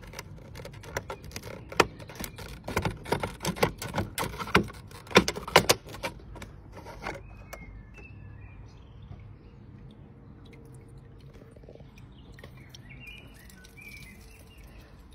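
Plastic dome cover of a CCTV dome camera clicking and scraping as it is twisted and worked loose by hand: a quick run of sharp clicks over the first six seconds, then much quieter handling.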